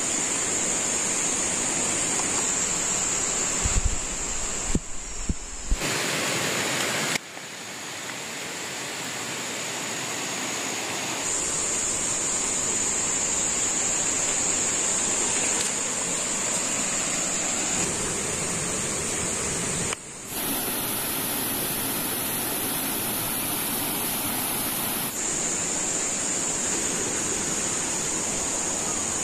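Steady forest ambience: a rushing, water-like noise with a high, steady insect drone over it. Both change abruptly at several cuts, the drone jumping higher for a few seconds around the twentieth second.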